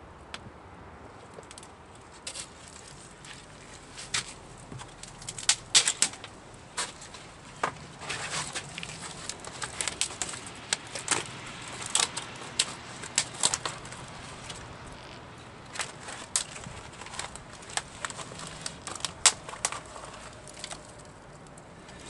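Small campfire of thin wooden laths crackling, with many irregular sharp pops that come thickest through the middle and thin out near the end.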